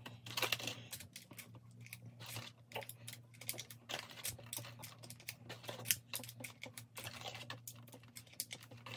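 9mm cartridges being pushed one after another into a new 33-round Glock extended magazine with a magazine speed loader: a run of short, irregular plastic-and-metal clicks and rattles.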